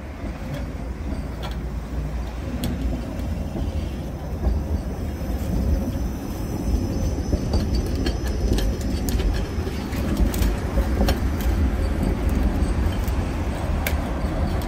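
A Tatra-type overhead-line inspection tram rolling past on newly laid track, its wheels rumbling and clicking on the rails, growing louder as it comes by. A thin high whine is heard for several seconds in the middle.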